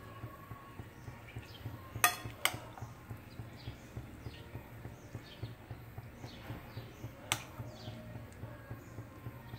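Three sharp clinks of a kitchen utensil against cookware: two about two seconds in, half a second apart, and a third near the seven-second mark. Under them is a steady low hum, with many short, high chirps throughout.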